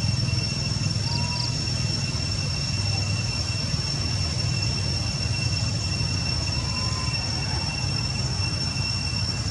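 Steady outdoor background noise: a low rumble with a constant high-pitched whine above it. Faint short chirps come about a second in and again near seven seconds.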